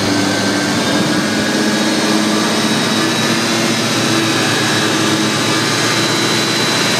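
Truck-mounted vacuum pump of a steel vacuum tanker running steadily in discharge mode, a loud even rush of air with a high steady whine. A lower engine-like hum runs under it.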